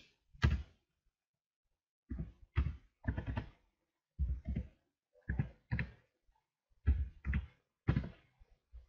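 Computer keyboard typing: short clusters of keystrokes, one or two at a time, spaced about a second apart.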